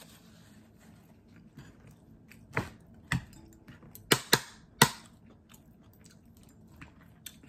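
Eating at the table: quiet chewing, broken by about five sharp clinks of a metal spoon and fork against dishes between about two and a half and five seconds in.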